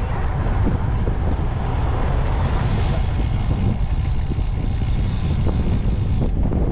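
Wind buffeting the microphone of a camera on a moving road bike, a steady low rumble. A higher hiss joins about two seconds in and cuts off suddenly near the end.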